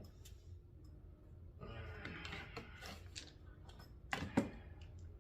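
Quiet handling noise of a less-lethal pistol being loaded, with a few sharp clicks, the loudest about four seconds in.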